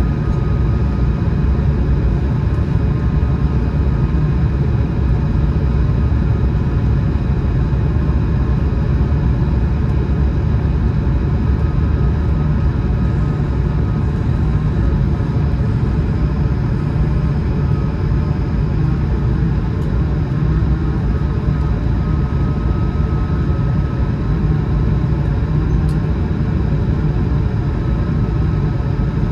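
Airbus A220-100 cabin noise in flight: the steady rush and low rumble of airflow and the Pratt & Whitney PW1500G geared turbofan engines, with a faint even engine whine over it, heard from an economy seat.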